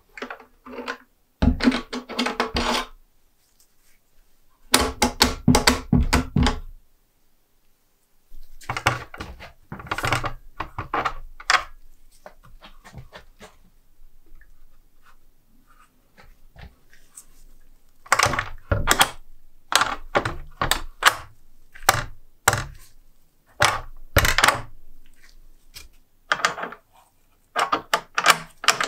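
A small wooden door swinging shut against its wooden frame with hard thuds, then a run of clicks and clacks as the restored antique door lock's latch and bolt are worked. The two heaviest thuds come in the first seven seconds.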